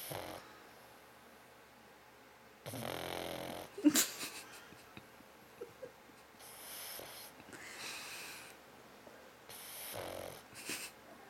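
Pug snoring in its sleep: a few long, wheezy breaths a few seconds apart. One has a low buzzing rattle about three seconds in and ends in a sharp snort.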